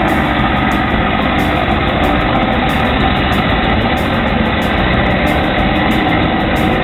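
Steady drone of the heavy engine of a high-reach demolition machine with a claw arm, running without a break.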